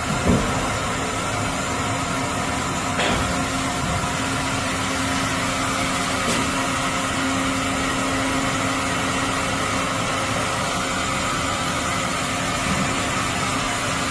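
Doosan HC 500 horizontal machining center running through a pallet change: a steady machine hum with several fixed tones, broken by a few short knocks and clicks.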